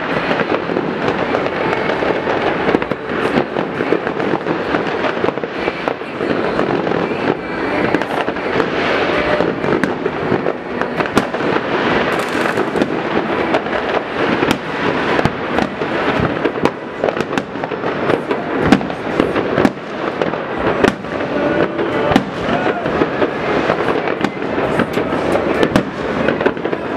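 Continuous New Year's fireworks: a dense wash of distant bangs, crackles and firecracker reports, with many sharp cracks standing out, heaviest in the second half.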